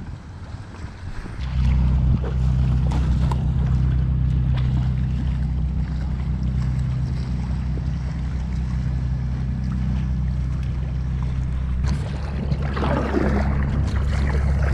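Low, steady drone of a boat engine, which comes in about a second and a half in and keeps running. Water splashing rises over it near the end.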